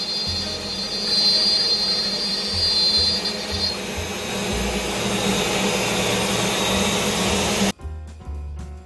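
Shark HD5 CNC router cutting, a loud steady machine noise with a high whine that drops out a little under halfway. The noise cuts off abruptly near the end, where background music comes in.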